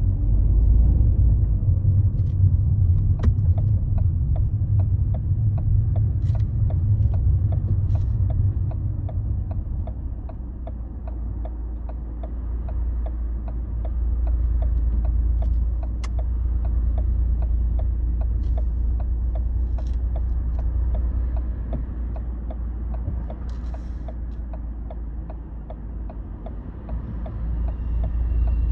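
Car engine and road rumble heard inside the cabin, heavier for the first ten seconds and then easing to a lower idle rumble as the car slows and waits. A turn-signal relay ticks steadily over it.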